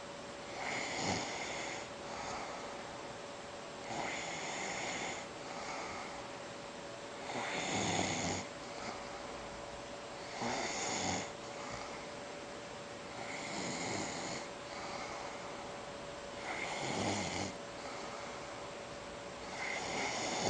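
Loud snoring from a sleeper, one snore about every three seconds with the breathing hiss between.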